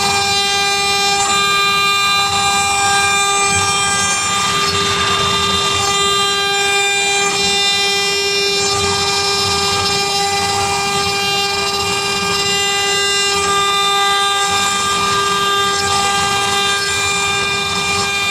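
CNC router spindle running at a constant high speed with a steady high whine while its carving bit engraves a wooden cylinder turning on a rotary axis, a rough cutting hiss under the whine.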